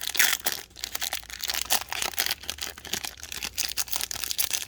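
Foil wrapper of a trading-card pack crinkling and tearing under the hands, a dense run of rapid, irregular crackles.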